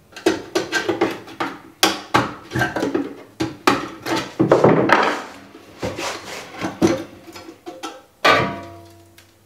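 Irregular knocks, taps and cracks of a hand tool striking and prying at the plastic case of a diaphragm gas meter as its side tabs are broken off. About eight seconds in, one knock rings on briefly.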